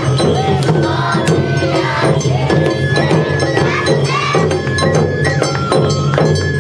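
Awa Odori procession music: taiko drums beating steadily and kane hand gongs clinking in a fast rhythm, with a bamboo flute holding high notes from about halfway through. Dancers' shouted chanting calls ring out over it in the first seconds and again about four seconds in.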